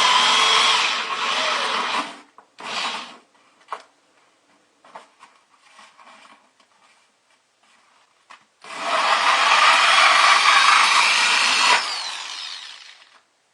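Power drill cutting a 2 1/8 inch hole through a styrofoam bucket liner: a long run of grinding cut for about two seconds, a short burst, a few seconds of small clicks and knocks, then a second long run from about nine seconds in that trails off near the end.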